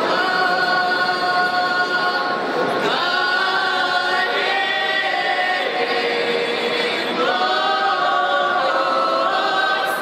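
Russian folk ensemble of women's voices and one man's singing unaccompanied in several parts, holding long notes in harmony. New phrases begin about three seconds in and again past seven seconds.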